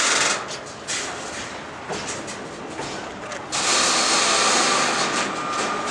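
Container wagons of a freight train rolling past close by: a steady rush of steel wheels on rail with repeated rail-joint clicks. It grows louder again about three and a half seconds in, with a thin whine.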